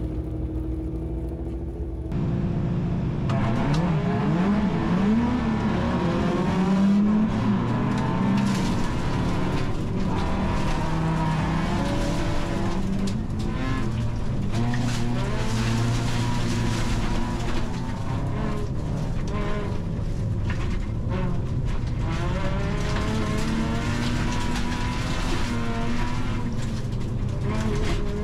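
Bilcross race car heard from inside the cabin, its engine holding a steady note at first, then revving hard, rising and falling through the gears from about two seconds in, with tyre and gravel noise.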